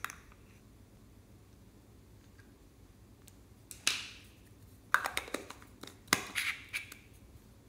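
Small plastic pear-shaped container being handled. There is one sharp plastic knock about four seconds in, then two quick runs of clicks and taps as its two halves are put together.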